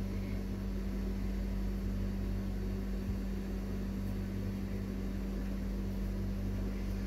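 Steady low electrical or mechanical hum with a faint hiss, the background noise of the room, with one faint tap about three seconds in.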